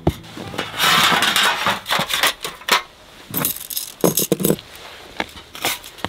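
Objects being handled: a run of knocks and light clinks, with a rustling scrape about a second in.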